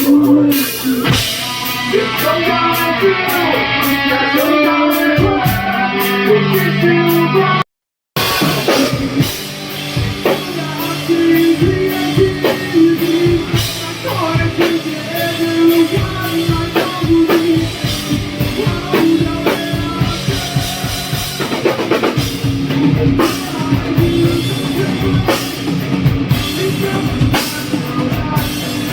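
Rock band playing with drums, guitar and a singer. The sound cuts out briefly about eight seconds in, then the drum kit drives on with a steady beat under guitar.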